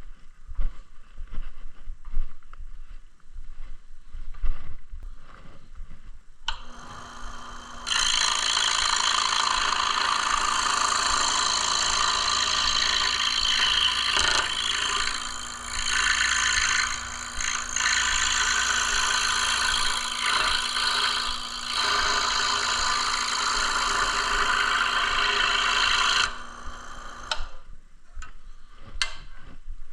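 Electric scroll saw starting about six seconds in and running steadily as it cuts wood, with a few brief dips in the sound, then switched off near the end. Light handling clicks and knocks come before and after it.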